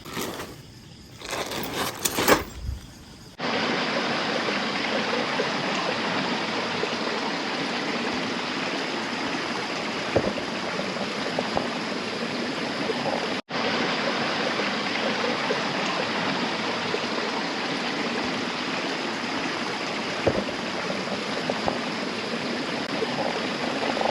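Steady rushing of a rainforest stream pouring over the rock at the top of a waterfall. It starts abruptly about three seconds in, after a few knocks, and drops out for a moment about thirteen seconds in.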